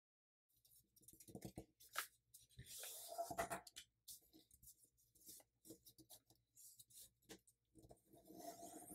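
Faint rustling and crinkling of a paper sheet being folded and pressed flat by hand, with small scattered clicks and two longer rustles, one about three seconds in and one near the end.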